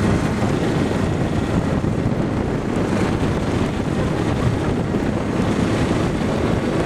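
Wind buffeting the microphone of a fast-moving camera: a loud, steady low rumble.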